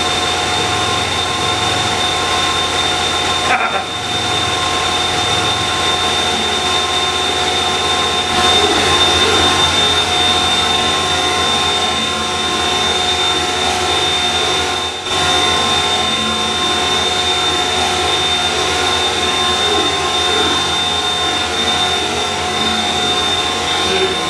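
Tormach CNC mill spindle running at speed with an end mill machining an eggshell: a steady mechanical whine made of several fixed tones over a noisy hiss. It dips briefly about four seconds in and again around fifteen seconds.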